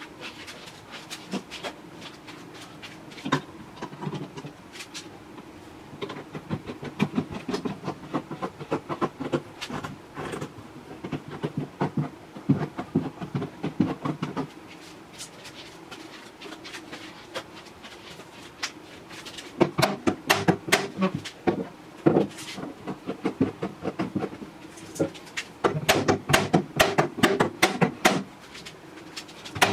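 Steel bar clamps clinking and rattling as they are set and adjusted on a pine cabinet, followed in the second half by quick runs of light hammer taps on the clamped joint, several taps a second.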